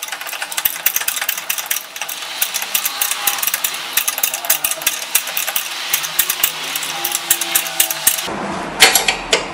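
Ratcheting wrench clicking rapidly as it tightens the nut on a new sway bar link. Near the end the sound changes abruptly and a few louder, separate metallic clicks follow.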